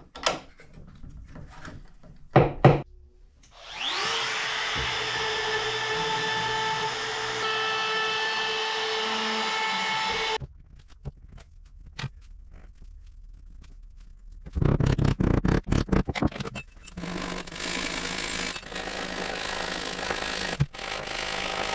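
A corded handheld power sander on wood spins up about four seconds in and runs steadily for about six seconds. A quick run of sharp knocks follows, and the sander runs again through the last few seconds.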